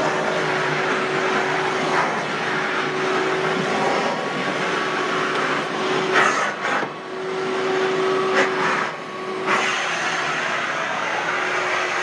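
Ridgid WD1450 wet/dry shop vacuum running steadily as its floor nozzle is pushed over carpet, a rushing of suction air over a faint hum. Twice in the second half the sound dips briefly, with a few light knocks.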